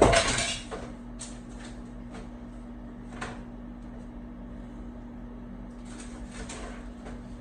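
Handling noises from tablet repair work: a loud scrape or clatter at the start, then scattered short taps and scrapes of tools and parts, over a steady low hum.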